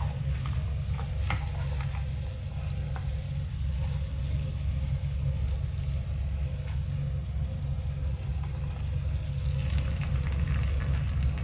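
Minced garlic frying in butter in a nonstick pan: scattered sizzling crackles and pops over a steady low rumble. The crackling grows busier near the end as shrimp go into the hot butter.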